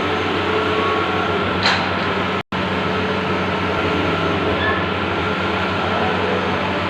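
Bluewin large-format outdoor banner printer running with a steady mechanical hum and hiss. There is a short click about a second and a half in, and the sound cuts out for an instant about two and a half seconds in.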